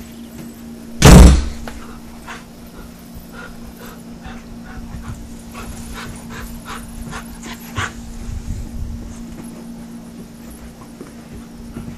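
A black dog barks once, very loudly, about a second in, then gives a string of short, quieter yips.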